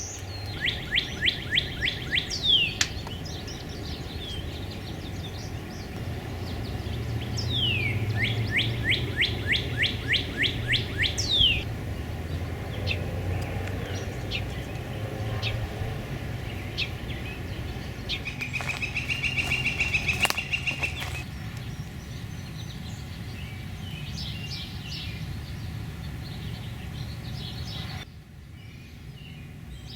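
Songbirds singing outdoors: one bird gives two loud songs of quick repeated down-slurred whistles, each a couple of seconds long, and a fast trill comes about twenty seconds in, with scattered chirps after. A low steady rumble lies underneath.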